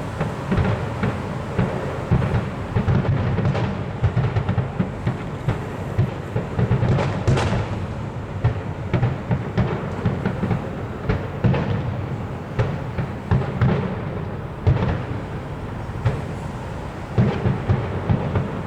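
Fireworks display: a rapid, unbroken string of bangs and deep booms, with some sharper, louder cracks about seven, fifteen and seventeen seconds in.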